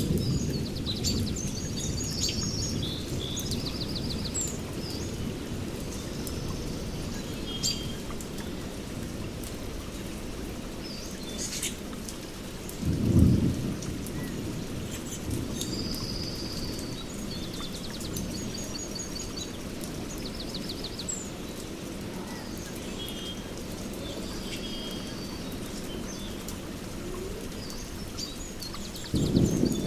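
Rainstorm with steady rain and low rolling thunder, birds calling and trilling over it. A louder thunder rumble comes about 13 seconds in, and another swells near the end.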